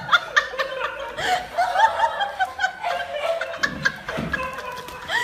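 People laughing and giggling in quick repeated bursts, with scattered light knocks and taps.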